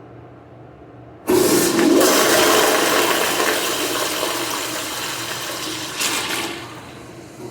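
American Standard Cadet pressure-assist toilet flushing: a sudden loud rushing whoosh starts about a second in and slowly fades over about five seconds, with a brief surge near the end before it dies down.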